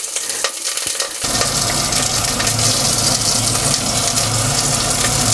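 Quince quarters, potatoes and pork belly sizzling as they brown in fat in a stainless steel pot, a steady frying hiss. About a second in, a low steady hum joins it.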